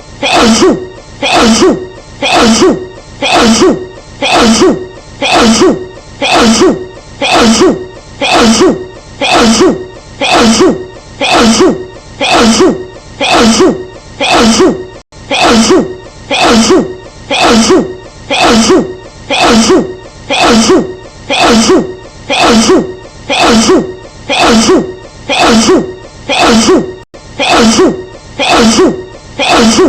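A woman's sneeze looped over and over, the same sneeze repeating about every 1.2 seconds in an even rhythm.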